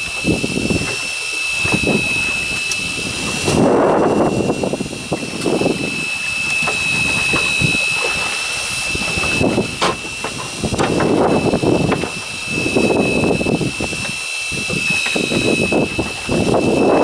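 Strong wind buffeting the microphone in repeated gusts that swell and fade every few seconds, over a steady high-pitched whine.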